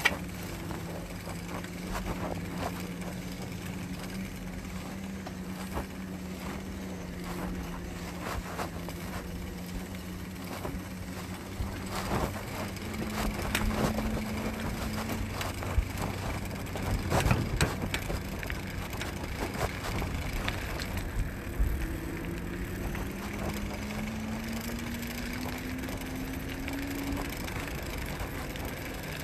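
Ebike riding along a paved path: a steady motor hum that climbs in pitch as the bike speeds up, twice. Scattered knocks and rattles come from bumps, most of them about halfway through.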